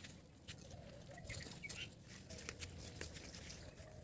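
Light rustling with scattered small clicks and snaps of Malabar spinach vines and leaves being picked by hand, with a few faint wavering calls in the background.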